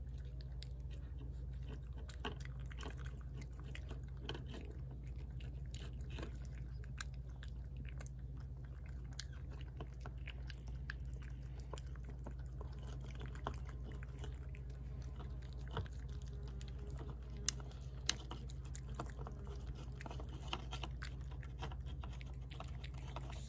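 Cat chewing its food from a plate, eating fast: a steady run of small wet clicks and crunches, with two sharper clicks a little past the middle.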